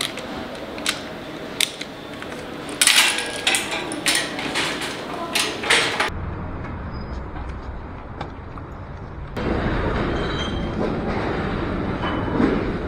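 Metal wire shopping trolley being released from its coin lock and pulled out of a nested row: a couple of sharp clicks, then about three seconds of metal clattering and rattling as the baskets knock against each other. From about nine seconds in there is a steady rumbling noise of the trolley rolling along the shop floor.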